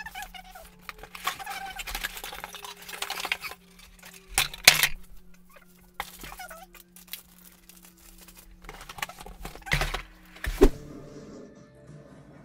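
A cardboard laptop box and its packing being handled: irregular rustling and scraping of cardboard and plastic, with several sharp knocks and clicks, over a faint steady hum.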